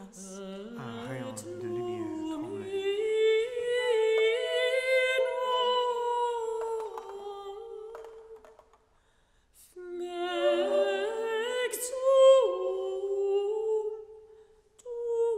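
Contemporary chamber music for flute and voice: long held notes that slide slowly and step between pitches, two lines together at first. The music breaks off for about a second just past the middle, then the held notes resume.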